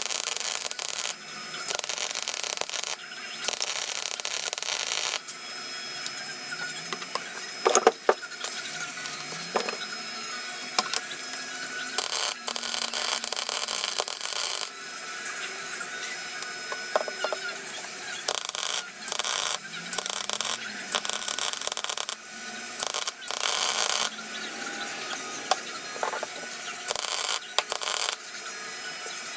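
Gas-shielded MIG welder welding a sheet-steel floor panel in place, the arc striking in short bursts of about half a second to two seconds and stopping again many times over, as tack and stitch welds are laid.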